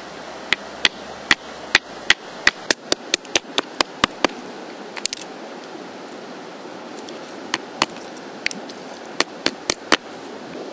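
A run of sharp clicks that quickens from about two to five a second, then after a pause a few more clicks near the end, over a steady background hiss.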